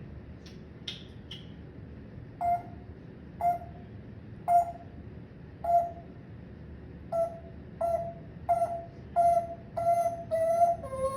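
Parrot giving a run of about eleven short, clear, whistle-like notes, about one a second at first, then quicker toward the end, the last note sliding lower in pitch.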